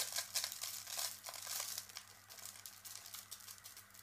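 Dry, irregular crackling and crinkling as black salt is added to a bowl of yogurt. It starts suddenly and is loudest over the first two seconds, then eases off.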